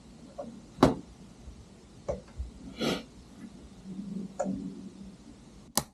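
A few separate sharp clicks and knocks, the loudest a little under a second in and another near the end, with a brief rustle about three seconds in, over a faint low hum.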